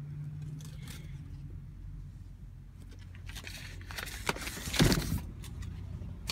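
Rustling and scraping of a handheld phone being moved about inside a car's cabin, louder for a couple of seconds near the end, with the sharpest scrape about five seconds in.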